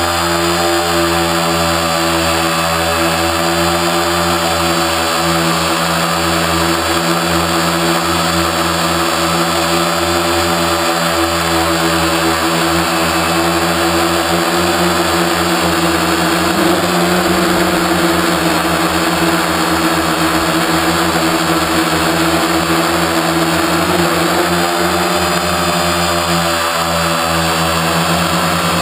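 Quadcopter's electric motors and propellers running steadily in flight, heard from a camera on board: a loud whine of several tones that shifts in pitch about 17 seconds in and again about 25 seconds in as the throttle changes.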